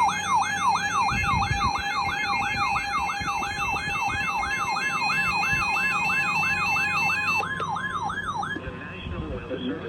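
Electronic weather-radio alarm tones for a severe thunderstorm warning: a siren-like wail sweeping up and down about twice a second, layered with a stepped high-low warble tone. A steady tone joins about four seconds in, and all the tones cut off shortly before the end.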